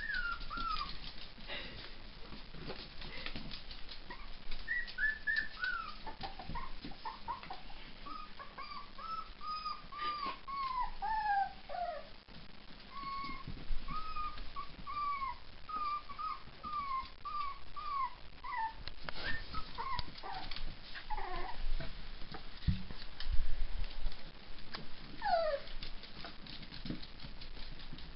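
Miniature dachshund puppies whimpering: runs of short, high whines, most of them falling in pitch, with scattered clicks and a knock.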